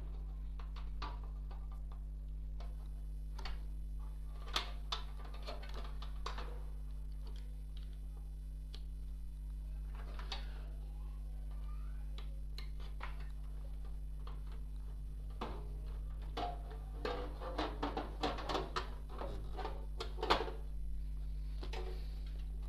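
Scattered clicks, taps and light rattles of computer parts and cables being handled and fitted during PC assembly, busier in a cluster of clicking near the end, over a steady low electrical hum.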